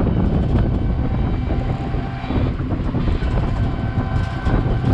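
An open-sided three-wheeler auto-rickshaw in motion: a steady low rumble of the vehicle and road noise.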